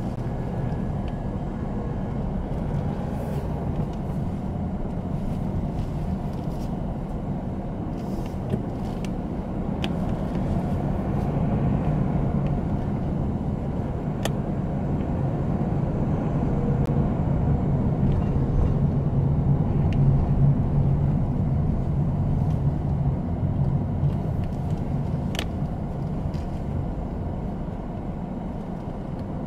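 Car engine and tyre noise heard from inside the cabin while driving slowly: a steady low hum that grows somewhat louder midway, with a couple of faint sharp ticks.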